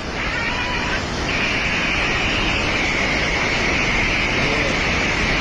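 Steady roar of a river in violent flood, the torrent rushing by; a higher, steady hiss joins about a second in.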